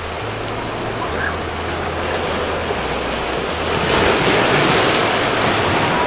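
Ocean surf breaking and washing over a rocky shoreline, growing louder about four seconds in as a wave surges across the rocks.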